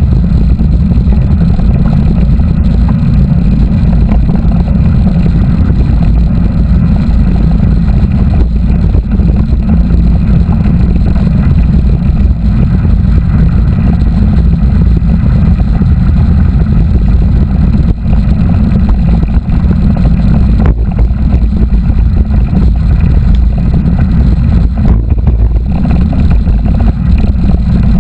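Wind buffeting the microphone of a camera riding along on a mountain bike: a loud, steady low rumble.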